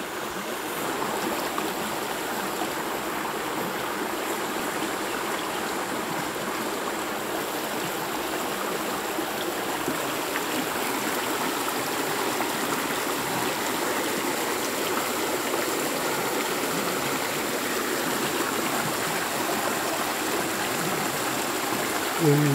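Stream water running steadily, with a short voice near the end.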